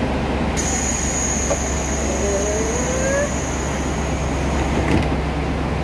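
Railcar doors closing on the Aru Ressha, a converted diesel railcar, over the low steady hum of the idling train. A high steady tone with hiss runs while the doors move, a short rising squeak comes midway, and a knock about five seconds in marks the doors shutting, where the tone stops.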